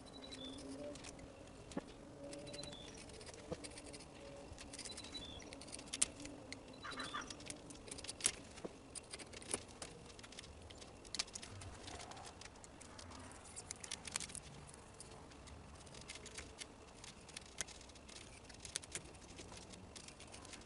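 Faint, scattered light ticks and scratches of a razor blade and fingers working duct tape along a screen door's edge, with a few faint bird chirps in the first several seconds.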